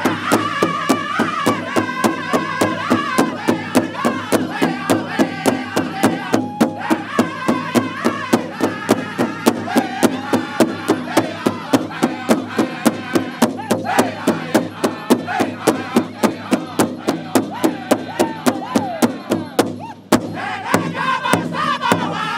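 Powwow drum group beating a large shared drum in unison with padded drumsticks, a steady even beat, while the men sing together over it. About 20 seconds in the drumbeat drops away and the singing carries on.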